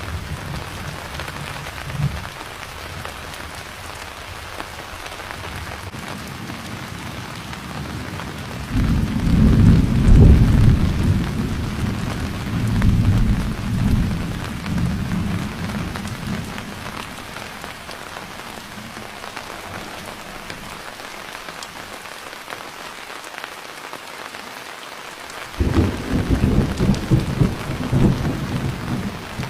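Steady rain with thunder: a heavy rumble builds about nine seconds in and dies away over several seconds, and another starts suddenly near the end.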